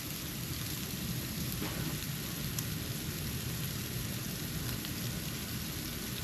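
Falling snow recorded close to the microphone: a steady hiss over a constant low rumble, with a few faint ticks of flakes landing.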